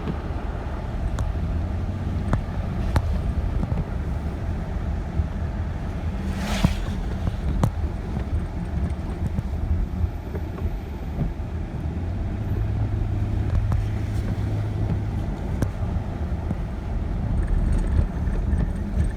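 Car driving on a wet road, heard from inside the cabin: a steady low rumble of engine and tyres, with a brief hiss about six and a half seconds in.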